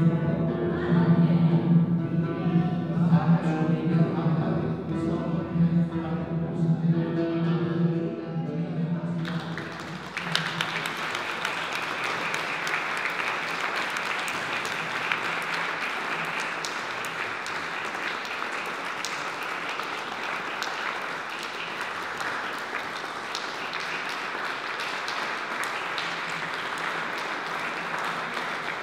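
Music for voice and zither ends about nine seconds in. An audience then breaks into applause, which carries on steadily for the rest.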